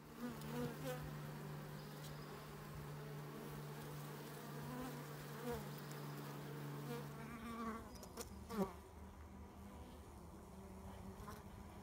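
Honeybees buzzing at a wild colony's nest in a tree hollow: the steady hum of the colony, with single bees flying past the microphone, their buzz rising and falling in pitch. One bee passes very close about eight and a half seconds in.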